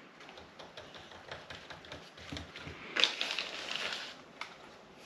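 Hard plastic dash-kit parts being handled and pressed into place: scattered small clicks and taps, with a louder scraping, rustling stretch about three seconds in that lasts about a second.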